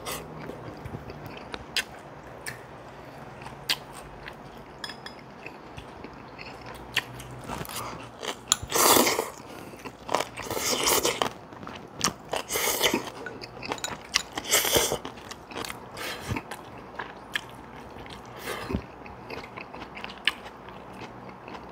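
Close-up eating of Korean side dishes: crunchy bites and chewing, with many sharp little clicks. A few louder crunching bites come about two seconds apart through the middle.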